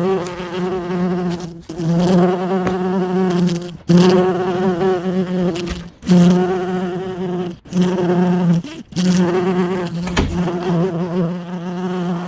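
Bee buzzing: a loud, low, wavering buzz broken by brief gaps every second or two.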